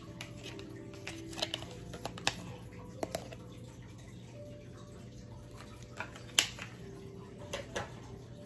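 Scattered sharp clicks and taps of a plastic hamburger patty press being handled, the loudest about six and a half seconds in, over soft background music with long held notes.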